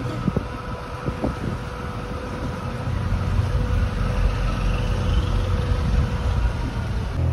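Motorboat engine running steadily, a low rumble that grows a little louder about three seconds in.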